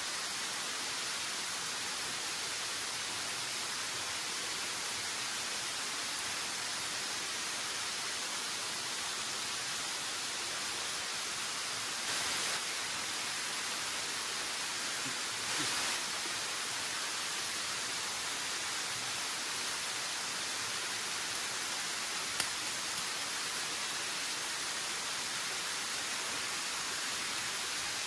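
Waterfall and stream rushing steadily, a dense even hiss. It swells briefly twice, a little before and a little after the middle, and a single sharp click comes later.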